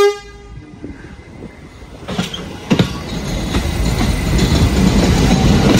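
A New York City subway train's horn cuts off about half a second in, then the train pulls out of the station, its running noise building steadily, with a couple of sharp clacks over the rail joints between two and three seconds in.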